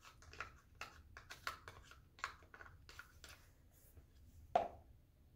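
Metal spoon scraping thick white glue out of a measuring cup into a bowl: a run of faint, irregular scrapes and clicks, with one louder tap about four and a half seconds in.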